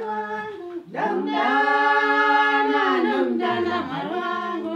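Women singing unaccompanied, with a long held note that rises in about a second in and then eases into softer singing.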